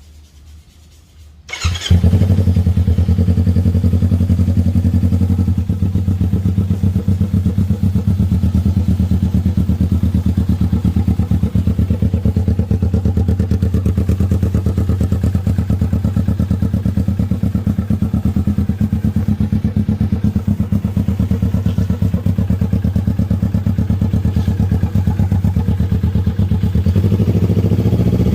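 Kawasaki Versys-X 250's parallel-twin engine starting about two seconds in, then idling steadily with a fast, even pulse.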